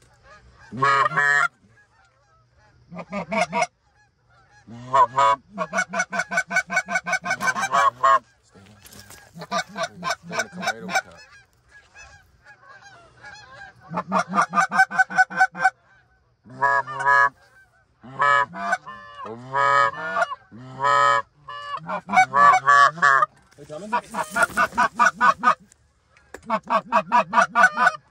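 Hunters blowing Canada goose calls, loud series of honks and rapid clucks in bursts with short pauses between, calling to a flock of Canada geese.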